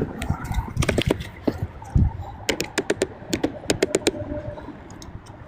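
Irregular clicks and taps, with one dull thump about two seconds in, as a corroded car battery terminal and cable clamp are worked over with a wire battery-terminal brush.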